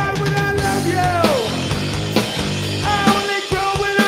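Two-piece rock band playing live: electric bass and drum kit, with a voice singing long held notes. About a second in, a note slides down in pitch.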